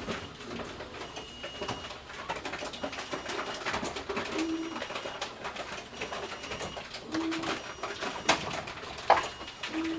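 Grocery store bottle return machine running: a short low tone repeats about every three seconds over clinking and clattering, with two sharp knocks near the end.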